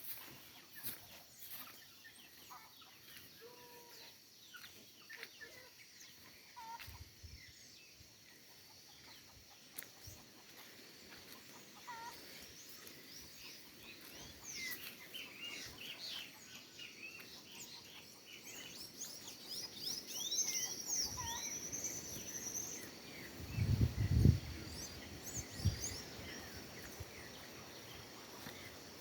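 Several birds chirping and calling over a quiet outdoor background, with the calls growing busier in the second half. A short low thump about 24 seconds in is the loudest sound, with a smaller one shortly after.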